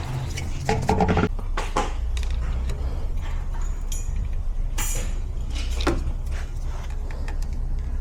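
Low rumble of a vehicle rolling slowly, with scattered metallic clicks and brief high-pitched squeals about four and five seconds in, from the rear brakes.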